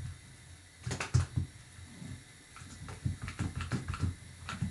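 A one-handed bar clamp is worked while a length of wood is shifted against the workbench: a run of irregular clicks and knocks from about a second in, some with low thuds.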